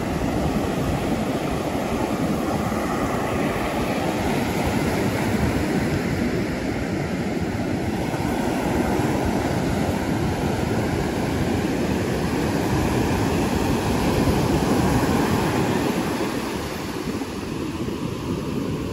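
Ocean surf breaking and washing up a beach, mixed with wind buffeting the microphone: a steady rushing noise that eases slightly near the end.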